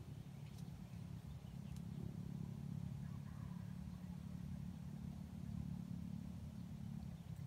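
Faint, steady low engine hum that grows a little louder about two seconds in.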